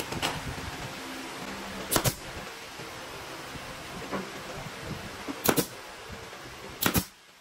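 About five sharp knocks, a second or two apart, over a steady hum that cuts off near the end.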